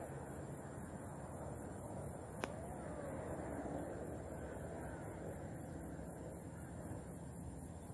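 Quiet outdoor ambience: a steady faint hiss with a thin insect drone, and a single sharp click about two and a half seconds in.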